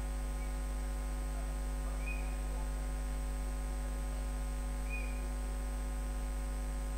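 Steady electrical mains hum with a stack of overtones, picked up by the recording setup, with a few faint short high blips about two and five seconds in and near the end.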